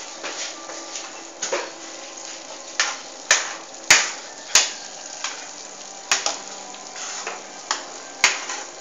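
A block of cheese grated over a pan of spaghetti sauce: about a dozen short, sharp scraping strokes at irregular intervals. A faint steady sizzle from the pan runs underneath.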